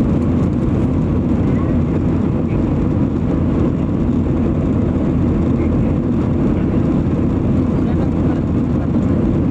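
Steady low cabin noise of a jet airliner in cruise, the engines and the rush of air heard from inside at a window seat.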